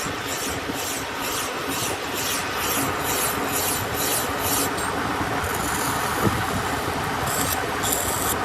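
Metal-working lathe running while something rasps against the turning steel pinion in regular strokes about three a second, giving way to a steadier scraping hiss about halfway through.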